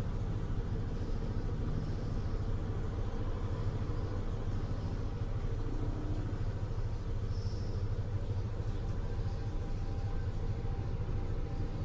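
A sleeping cat snoring, a steady low rumble, with a runny, stuffed-up nose.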